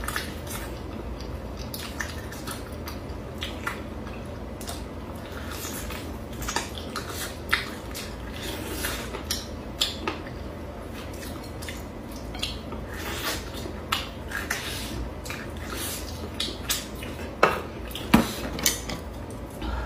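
Close-up eating sounds of a braised pig's trotter being gnawed and chewed: irregular wet smacks, sucks and sharp little clicks from the mouth, a few louder ones near the end.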